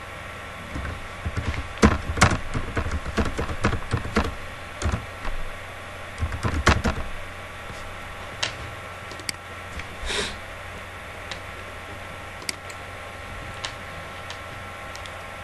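Typing on a computer keyboard: a quick, uneven run of key clicks for the first several seconds, then a few single clicks spaced out, over a steady hiss and hum.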